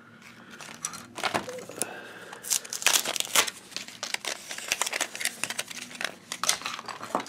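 Plastic toy packaging crinkling and rustling as it is handled and torn open, with many sharp, irregular clicks of hard plastic from a toy egg capsule.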